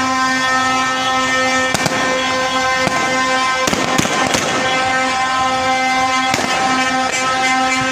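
A horn blaring in long, steady held notes with short breaks, over sharp bangs that crack out at irregular moments, several in the middle of the stretch.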